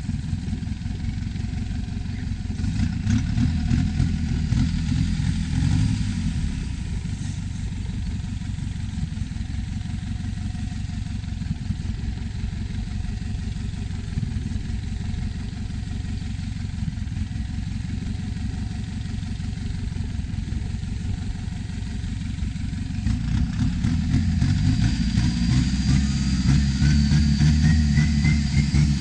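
Turbocharged diesel engine of a Thai long-tail racing boat running steadily with a rapid low chugging. Near the end it is opened up and grows louder, with a turbo whine rising in pitch as it spools.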